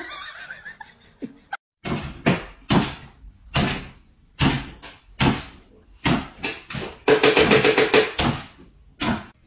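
A dog jumping up and down over and over on a wooden floor: a series of sharp thumps about two a second as it lands, with a faster run of them near the end.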